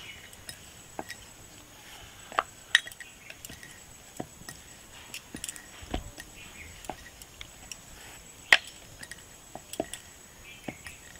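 Stainless-steel rolling pin rolling out paratha dough on a board, giving irregular sharp clicks and knocks as the pin shifts and bumps against the board. The loudest knock comes about three-quarters of the way through.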